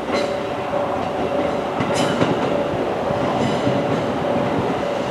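JR Central electric train rumbling as it pulls into the station, with a few brief high scrapes from the wheels. A level-crossing bell dings steadily, about twice a second.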